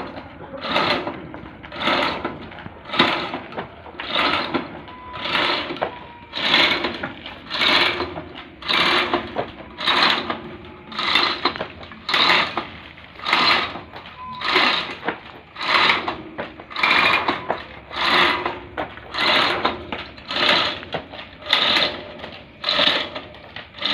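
A six-person team pulling a boat in unison, making even, noisy swishing strokes about one a second.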